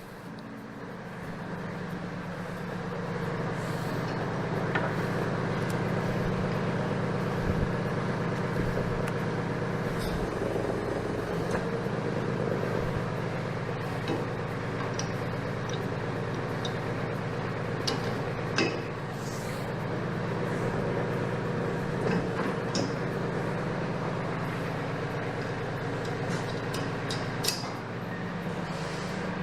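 Mahindra 1526 compact tractor's diesel engine running steadily, its revs coming up over the first few seconds as the hydraulics are worked to raise the lift. Scattered metal clicks and clanks sound over it.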